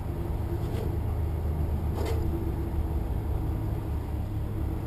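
Honda CBR motorcycle engine idling with the bike standing still: a steady low rumble.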